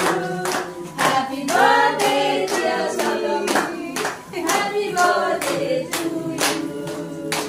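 A group of people singing a birthday song together while clapping along in a steady rhythm, a little over two claps a second.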